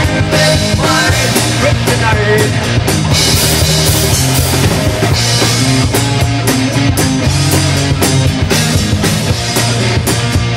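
Live rock band playing: two electric guitars over a drum kit and bass, loud and continuous.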